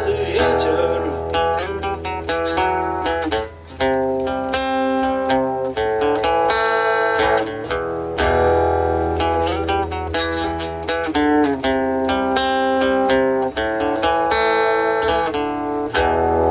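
Instrumental passage without singing: quickly picked guitar notes ringing one after another, with a low sustained bass note underneath at times.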